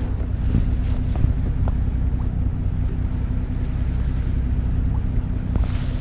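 Fishing boat's engine running steadily, a low, even drone with a constant hum.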